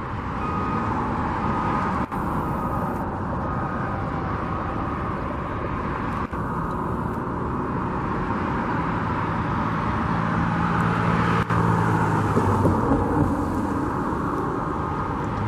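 Steady road traffic noise from passing cars, with an engine's low hum growing louder about eight to twelve seconds in.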